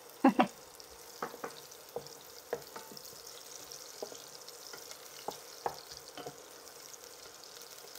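Garlic and onion sautéing in oil in a pot, with a faint steady sizzle. A wooden spoon knocks against the pot as it stirs: two loud sharp knocks just after the start, then lighter scattered taps.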